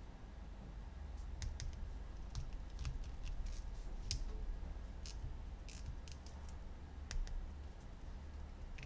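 Hands handling plastic toys and packaging: scattered light clicks and taps, irregular and a few each second, over a low steady hum.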